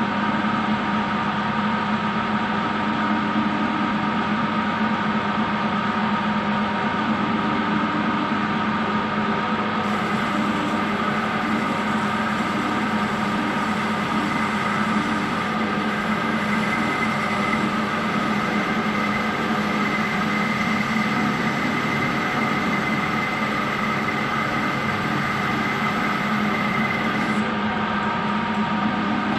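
Metal lathe running steadily with a whine of several steady tones, turning a piston while the tool takes about three thousandths of an inch off its top ring groove. A faint high hiss joins from about ten seconds in until near the end.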